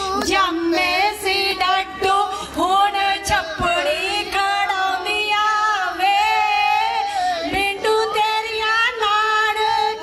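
Women singing a Punjabi folk song together, one voice sung into a microphone, with scattered hand claps.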